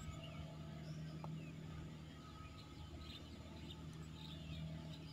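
Outdoor ambience of birds chirping over a steady low hum. A single faint tap about a second in is the putter striking the golf ball.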